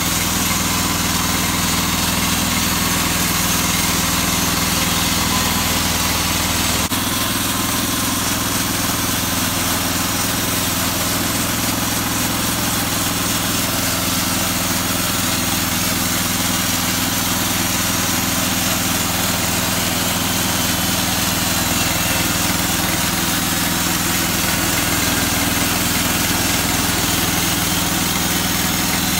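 WoodMaxx portable band sawmill's small engine running steadily during the milling of a shortleaf pine log. The owner believes the engine is not quite at full throttle.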